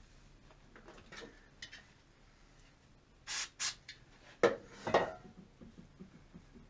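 Two short hisses of an aerosol can of brake cleaner spraying onto a rag, about three seconds in, followed by two loud knocks. Light rubbing of a shop rag over the ignition wires runs underneath.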